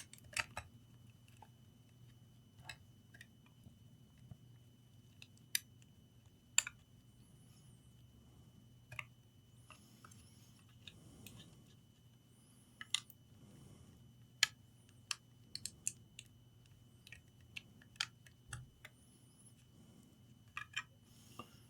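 Faint, scattered small clicks and taps of laptop parts being handled: the motherboard being set into the laptop case and the keyboard ribbon cable connector being plugged in, some clicks coming in quick pairs. A faint low hum and a steady high tone sit underneath.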